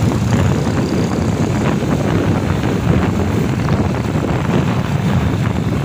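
Motorcycle on the move: steady wind rush buffeting the microphone over the engine running at road speed.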